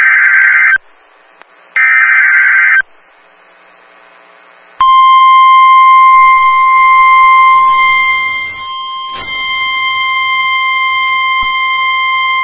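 NOAA Weather Radio EAS alert: the last two of the three buzzy digital SAME header bursts, each about a second long, then after a short pause the steady 1050 Hz warning alarm tone begins and holds, signalling that a warning message is about to be read.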